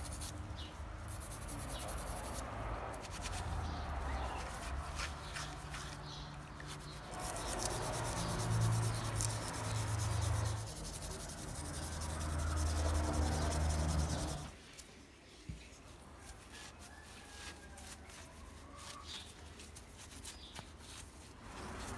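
Paintbrush bristles scrubbing a rusty steel punch part in a tub of soapy cleaning liquid, a dense rasping rub with a rumble from the tub. About two-thirds of the way through the scrubbing stops, leaving quieter cloth rubbing and a few light clicks of metal parts.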